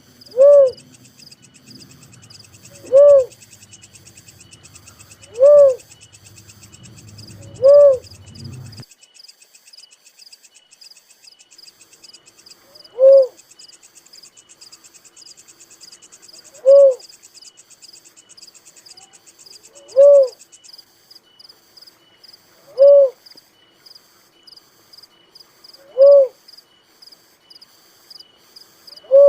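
A dove calling: ten single, loud, rising-then-falling hoots, one every few seconds, with a longer pause about nine seconds in. Faint insects chirr steadily in the background.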